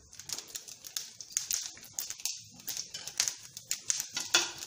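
Mustard seeds spluttering and popping in hot coconut oil for a tempering: a quick, irregular run of sharp crackles. A steel ladle stirring the sambar pot clinks now and then.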